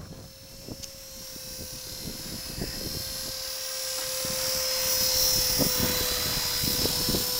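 Honey Bee King 3 electric RC helicopter in low flight: a steady motor and rotor whine that grows louder over the first five seconds as it comes nearer. Wind buffets the microphone.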